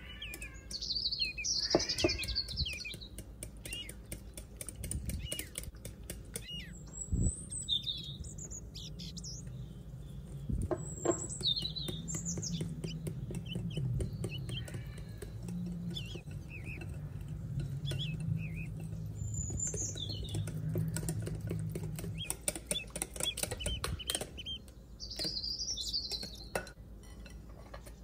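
Stainless wire whisk clicking and scraping against a glass bowl as flour is beaten into eggs to make pancake batter. High bird chirps come every few seconds in the background.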